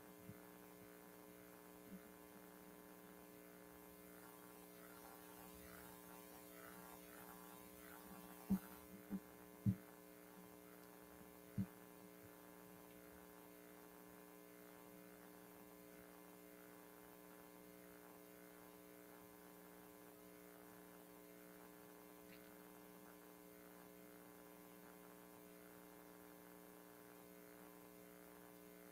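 Near silence with a faint, steady electrical mains hum. Four faint clicks come about eight to twelve seconds in.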